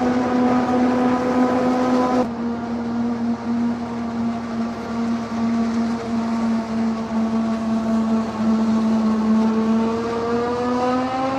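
Heavy farm machinery at work: a forage harvester and tractor running steadily with a strong, even hum. The sound changes abruptly about two seconds in, and the pitch rises near the end as the engine speeds up.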